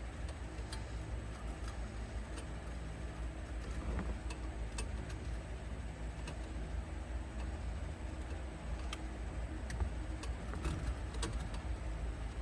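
Scattered light clicks and taps, irregularly spaced, over a steady low hum.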